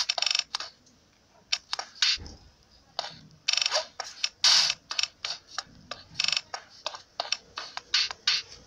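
An irregular run of sharp clicks and short clattering rattles, a few every second, some of the rattles lasting a fraction of a second, in the manner of computer keys and mouse buttons.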